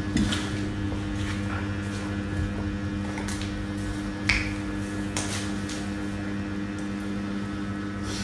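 Two people drinking water from glass mugs, with a few short swallowing and glass-handling sounds, the sharpest about four seconds in. A steady electrical hum runs underneath.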